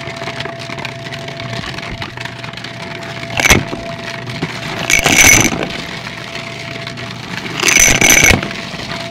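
Shark upright vacuum running with a steady motor hum, with three loud bursts of clattering as coins are sucked up and rattle through the nozzle into the dust cup, the first about three and a half seconds in and the last near the end.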